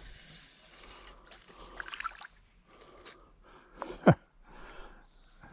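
Steady high chirring of insects along a creek, with a few light clicks, and one brief sharp sound falling in pitch about four seconds in, as a small hooked fish is swung out of the water.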